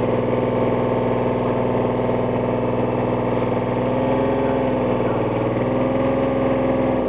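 Excavator's diesel engine running steadily while its bucket holds a strap taut on a cow stuck in mud, the engine note lifting slightly a couple of times.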